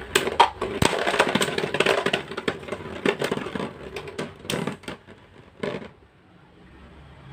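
LEGO-built Beyblade spinning tops (RoarBahamut and Helios Volcano) clashing and rattling against each other: a rapid run of clicks and knocks over a steady hum. The hits thin out and stop about six seconds in as the battle ends.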